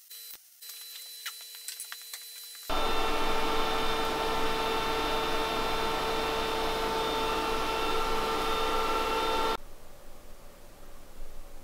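MIG welder laying short stitch welds into car body steel, a few brief crackling bursts in the first moments. About three seconds in, a loud steady machine noise with a constant hum and several steady tones takes over for about seven seconds, then cuts off suddenly.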